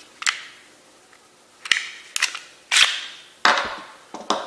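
Sharp metallic clacks from the slide of an unloaded Glock 19 Gen5 pistol being worked by hand during a safety check, about seven in all, several with a short ring after them.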